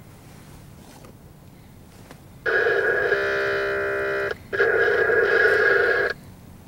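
Freight locomotive air horn sounding two long blasts for the grade crossing, the warning of an approaching train. The first starts about two and a half seconds in and lasts nearly two seconds; the second follows after a brief break. Several notes sound together as a chord.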